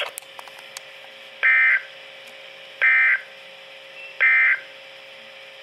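Three short bursts of warbling digital data tones, the EAS/SAME end-of-message code sent at the close of a NOAA Weather Radio alert, about a second and a half apart. A faint steady hum runs under them.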